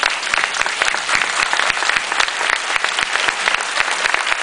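Large audience applauding, many hands clapping at once in a dense, steady patter.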